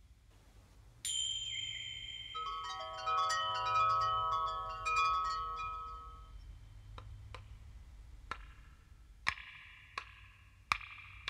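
Chime-like struck tones ringing out about a second in, then many overlapping ringing notes that die away, followed by sharp taps roughly once a second, the later ones leaving a short ring, over a low hum.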